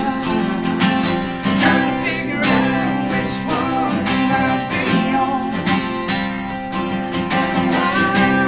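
Country band playing a song live, with strummed acoustic guitar to the fore and steady chord strums throughout.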